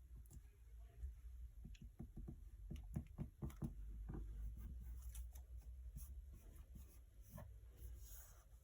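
Faint light taps and clicks, a quick cluster of them from about two to four seconds in and a few more later, over a low steady hum.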